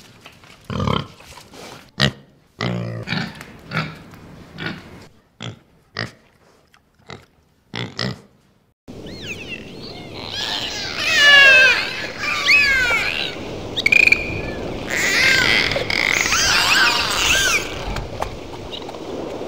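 A series of short animal grunts, then from about nine seconds in a dolphin whistling and clicking: many quick rising and falling squeals over a steady crackle.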